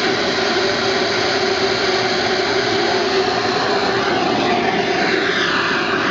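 Model jet turbine of a Skymaster RC Hawk running on the ground with a steady rushing roar; a high whine in it drops in pitch near the end as the jet is swung round.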